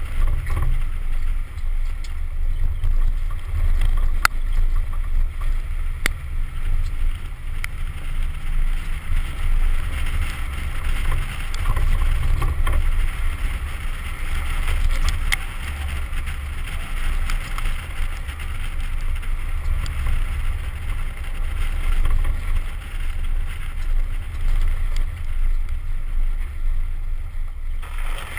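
2010 Ford Raptor's 6.2-litre V8 running as the truck drives off-road: a heavy low rumble, with a few sharp ticks.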